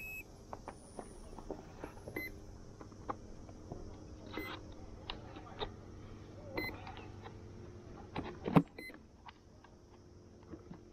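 Hands handling a foam RC jet's airframe: scattered clicks and taps from plugging in connectors and fitting the canopy, with one louder knock about three quarters of the way through. Short electronic beeps sound at the start and twice more, under a faint steady electronic hum.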